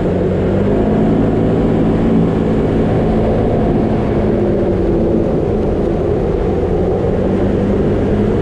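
A vehicle's engine running steadily while driving on a gravel road, its low hum rising and falling slightly in pitch over constant road noise.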